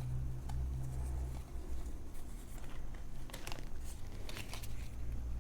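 Faint rustles and a few light ticks of paper trading cards being handled and flipped, over a steady low hum.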